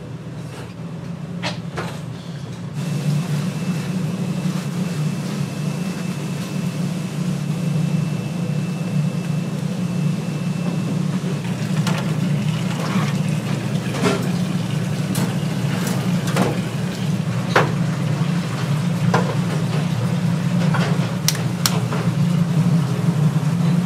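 A steady low mechanical hum, with scattered sharp clicks and knocks over it and a faint thin high whine for several seconds near the start.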